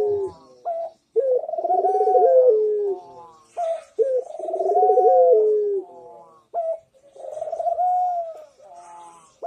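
Barbary dove (puter) cooing: three long, rolling coos about three seconds apart, with short notes between them.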